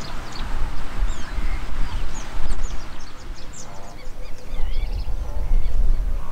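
Wild birds chirping and calling with many short, high notes, over a low wind rumble on the microphone that grows stronger in the second half.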